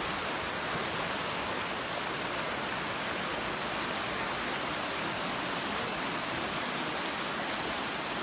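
River rapids: fast water rushing over rocks, a steady, even white-water rush.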